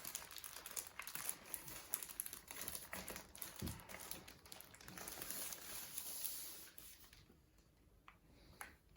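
Faint crinkling and rustling of packaging being handled, with scattered small clicks, as the keyboard is unpacked. It stops about seven seconds in, leaving only a couple of faint ticks.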